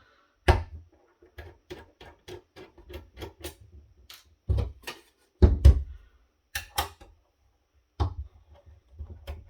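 Irregular clicks and knocks of tools and small parts being handled while an audio video switcher is unscrewed and taken apart. The louder knocks come about half a second in, in a cluster around the middle and near the end.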